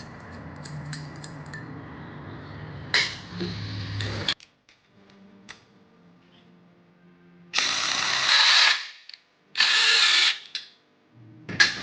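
Power driver running steadily for about four seconds, spinning the bolt to draw up and set a threaded rivet (rivnut), then cutting off suddenly. Later come three short, loud bursts of hissing noise.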